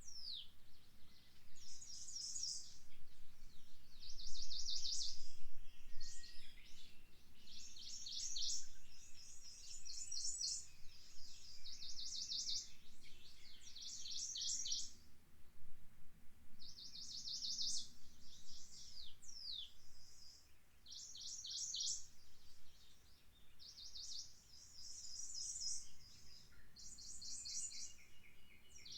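Songbirds singing: high, rapid trills about a second long, repeated every second or two, with an occasional quick falling whistle.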